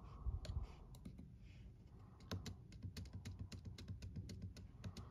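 Keys on a computer keyboard tapped in a quick, irregular series of faint clicks, with a soft low thump about half a second in.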